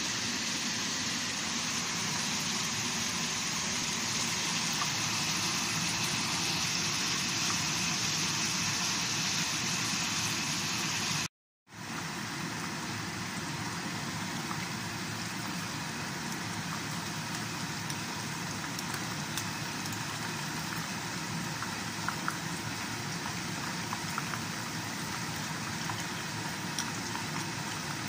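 Breaded chicken pieces deep-frying in a pan of hot oil: a steady sizzle with scattered small crackles. A brighter, hissier stretch breaks off suddenly about eleven seconds in, and after a brief silence the sizzle picks up again.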